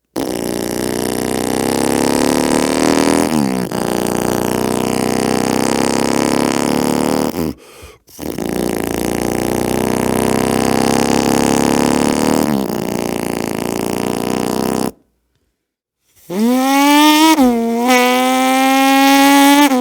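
Human vocal sound effects: a man imitating engines with his lips and voice, two long buzzing drones of about seven seconds each with a brief break between. After a second's pause comes a clearer, higher pitched tone that slides up and then holds.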